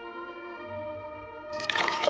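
Background music with sustained, held notes; about a second and a half in, a sudden louder noisy sound breaks in over it.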